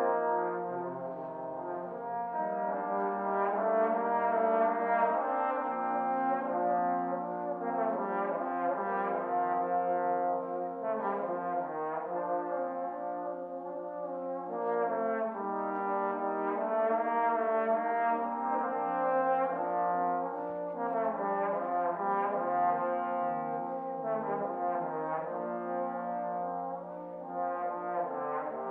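Solo trombone and a quartet of tenor trombones playing together in held chords that change every second or two.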